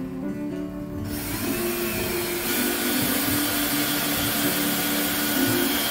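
Ryobi cordless drill running under load into a wooden stud. It starts about a second in and runs steadily for about five seconds.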